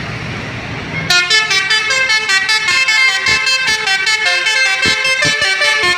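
A bus's Basuri multi-tone 'telolet' horn cuts in about a second in over engine and traffic noise and plays a quick melody of stepping notes.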